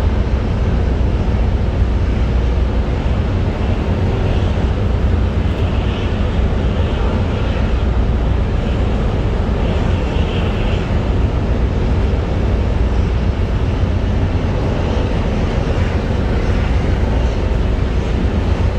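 Ship's engines running with a steady low rumble on an offshore supply vessel.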